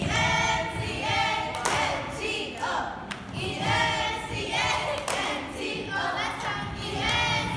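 A cheerleading squad of girls chanting a cheer in unison in short phrases, punctuated by sharp hand claps.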